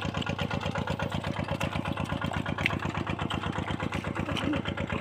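Small engine of a water pump running steadily with a fast, even beat.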